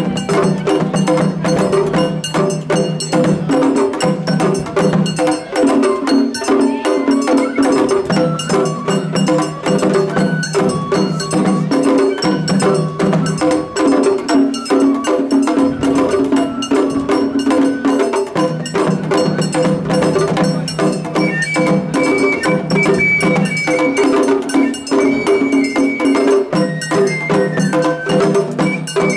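Japanese festival hayashi ensemble playing: a dense, rapid percussion beat with sustained pitched notes underneath, and a higher melody line coming in about two-thirds of the way through.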